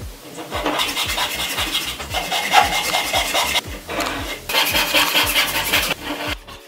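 Japanese handsaw cutting through the end of a plywood board, a rapid rasping of short strokes in two runs with a break of about a second between them.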